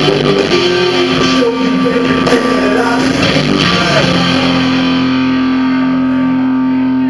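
Live band music led by guitar, with no vocals. Four to five seconds in, the busy playing settles into one long held note or chord.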